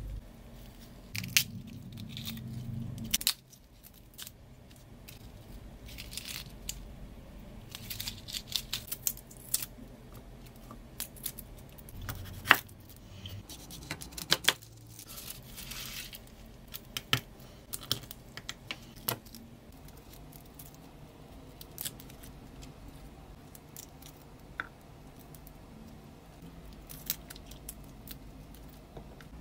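Broccoli swished in water in a stainless steel bowl, stopping about three seconds in. After that come sharp clicks of a chef's knife on a wooden chopping board as garlic cloves are trimmed, and the dry papery skins of the cloves being peeled off by hand.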